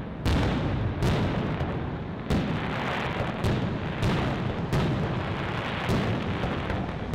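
Aerial firework shells bursting in quick succession, a sharp bang every half second to a second, each fading out in a rolling echo.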